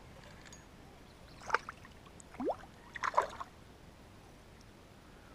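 A hooked fish splashing at the surface beside a kayak: short splashes about one and a half seconds in and again around three seconds, with a brief rising squeak between them.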